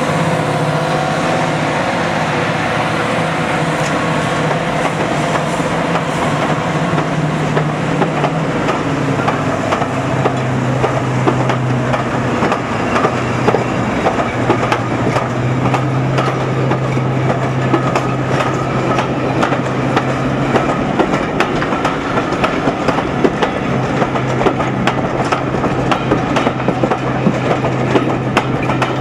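Deltic 55002's twin Napier Deltic two-stroke diesel engines drone under power as the locomotive passes, the drone dropping in pitch about ten seconds in. Its coaches then roll by close up, wheels clicking rapidly over the rail joints.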